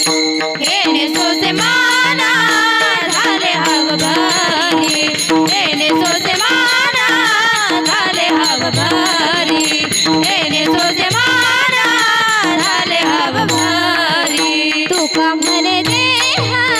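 Varkari kirtan music: a woman singing a devotional melody with wavering ornaments over a steady harmonium drone, with regular pakhawaj drum strokes and jingling hand cymbals.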